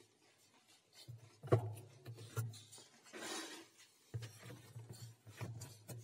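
Faint rubbing and handling noises with a few soft knocks and clicks, over a low hum.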